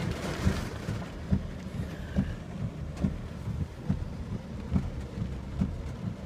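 Heavy thunderstorm rain heard from inside a car: a steady low rumble with many small irregular thumps of drops on the car, and a hiss that grows duller about a second in.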